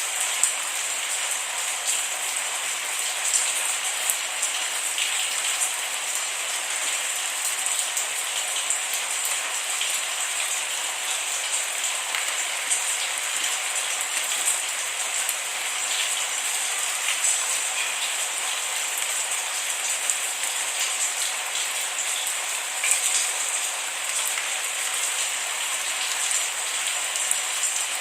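Steady rain falling, an even hiss with scattered individual drop ticks throughout.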